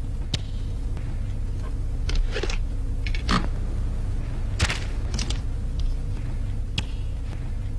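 Live foley sound effects made with a long thin rod and a taut cord: a series of sharp snaps and swishes, about seven spread over several seconds, over a steady low hum.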